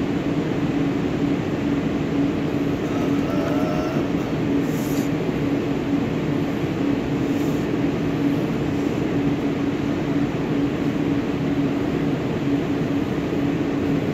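Steady drone of running machinery with a constant low hum, unchanging throughout.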